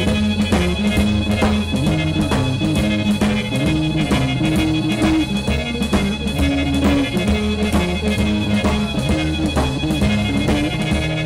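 Live R&B/jazz band playing a boogie-woogie number: a repeating low riff over a steady drum-kit beat, with guitar, no horns yet.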